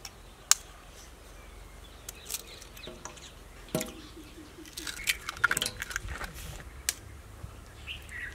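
Eggs cracked open one after another with a knife: separate sharp taps of the blade on the shells, with a quick cluster of cracks and clicks about halfway through.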